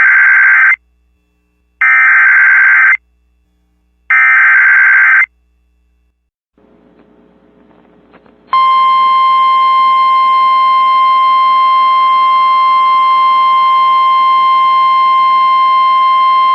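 Emergency Alert System alert opening: three short bursts of warbling digital header tones about two seconds apart, then a couple of seconds of faint radio hiss, then a long, loud, steady attention tone starting about eight seconds in.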